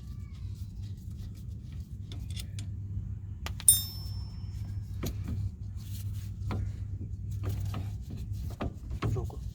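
Metal tools and brake parts clinking and tapping as a brake caliper bolt is taken out and the caliper lifted off, with one loud ringing metallic clink about three and a half seconds in, over a steady low hum.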